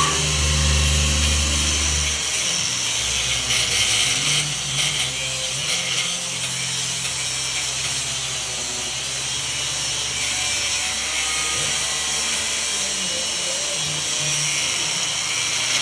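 Angle grinder cutting metal, a steady high hiss. A louder low hum underneath stops about two seconds in.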